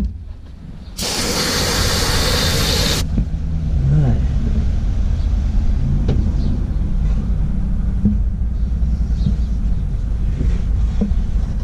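A loud hiss of spray starts about a second in, lasts about two seconds and cuts off sharply, clearing dirt from the fuel pump's outlet fitting. A steady low rumble runs underneath, with a few faint knocks of tools on metal afterwards.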